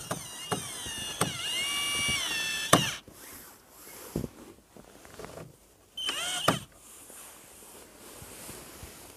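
A mechanical creaking squeal with a few sharp clicks over the first three seconds, then a shorter squeak about six seconds in.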